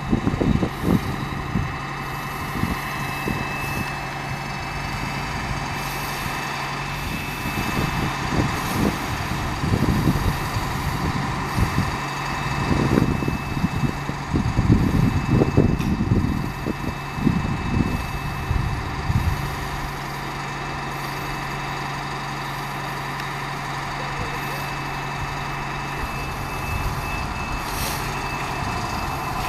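Fire engine's diesel engine idling steadily, a constant low hum with a faint high whine over it, under irregular low rumbling that dies away after about twenty seconds.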